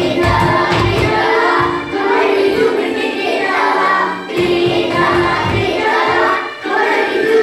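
A group of young children singing a song together over a backing track with a steady beat.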